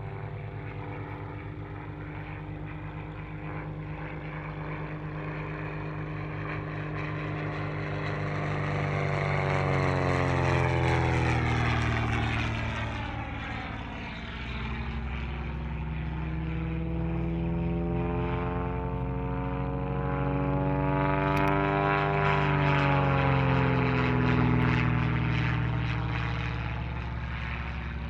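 Zlín Z 526 single-engine propeller aircraft flying aerobatics, its engine and propeller droning steadily. The pitch falls about ten seconds in, climbs again, and falls once more near the end as it gets louder and softer.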